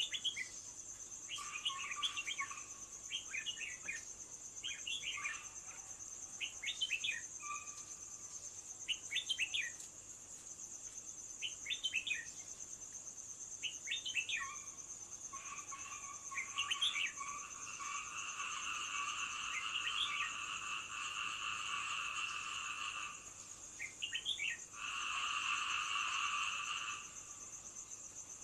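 Outdoor nature chorus: a steady, high-pitched insect trill runs throughout, while a bird repeats a short song phrase about every one and a half to two seconds. From a little past the middle, a longer buzzing trill at a lower pitch comes in for several seconds, drops out, then returns briefly near the end.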